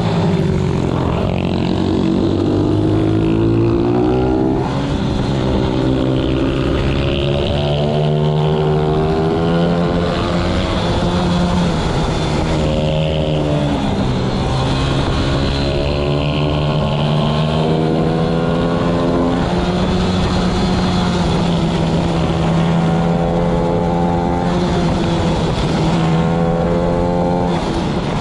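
Pit bike's single-cylinder four-stroke engine at racing speed, heard on board: its pitch climbs again and again under acceleration out of the corners and drops back between them. Other pit bikes run close by.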